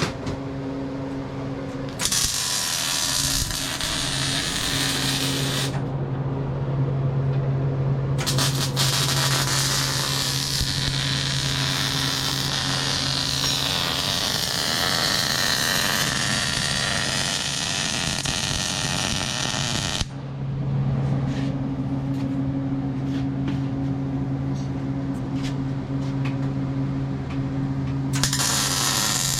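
Power tool work on steel: several loud hissing, grinding-type passages that start and stop abruptly, over a steady low hum.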